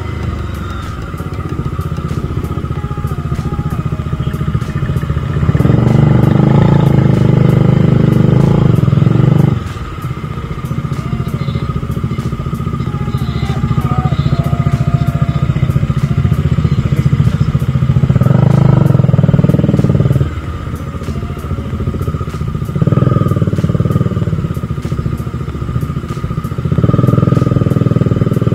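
Bajaj Dominar 400's single-cylinder engine running under way. It swells louder for a few seconds at a time, four times, then drops back.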